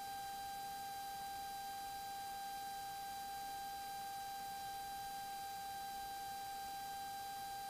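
Faint, steady electrical whine of one unchanging high pitch with a few overtones on the cockpit intercom audio line feeding the camera, with no engine sound coming through.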